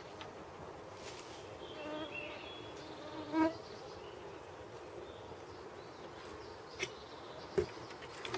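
Flying insects buzzing close by, a steady hum that swells loud for a moment about three and a half seconds in.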